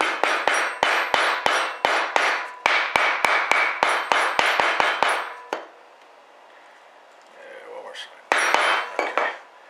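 Hammer striking a metal punch to cut round overshot-card wads out of card stock on a wooden block: fast sharp taps, about three a second, with a slight metallic ring. A pause of a few seconds with light handling noise follows, then a short last run of taps near the end.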